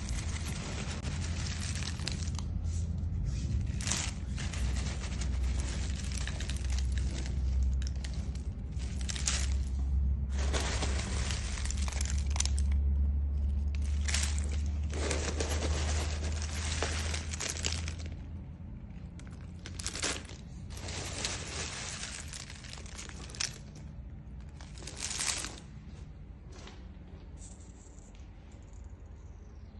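Dry agarwood (oud) chips rustling and crunching as a hand rakes and scoops through a heap of them, in a series of bursts a second or two long. A steady low hum runs underneath and stops a little past halfway.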